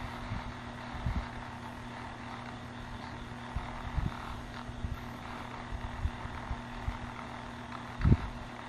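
Spirit box sweeping through radio stations: a steady static hiss over a low hum, with a few short low pops about a second, four seconds and eight seconds in.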